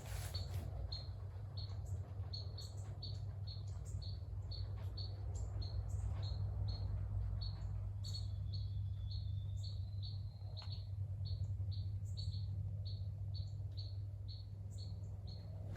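A steady series of short, high chirps, about two a second, repeating evenly over a constant low hum.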